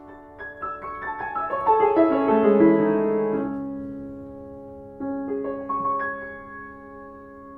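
Background piano music: a run of notes stepping down in pitch over about two and a half seconds, left ringing and slowly dying away, then a few softer notes near the end.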